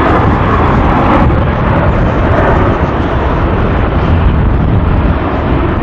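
Qantas Boeing 737-800's twin CFM56 turbofans at takeoff thrust as the jet lifts off and climbs away: a loud, steady roar whose hissing edge fades about a second in. Strong gusty wind rumbles on the microphone underneath.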